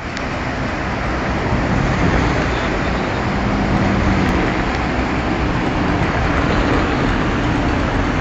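Steady rushing noise of a river's rapids, mixed with road traffic and a low engine hum.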